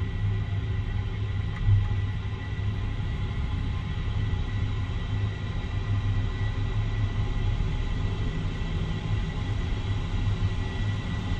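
2013 Jeep Wrangler Unlimited under way, a steady low rumble of engine and road, with one brief louder thump about a second and a half in.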